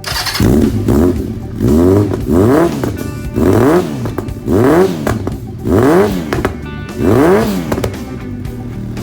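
Honda CB750's air-cooled inline-four, fitted with an aftermarket exhaust, blipped repeatedly from idle: six or seven short revs about a second apart, each rising and falling in pitch, with the engine settling back between them.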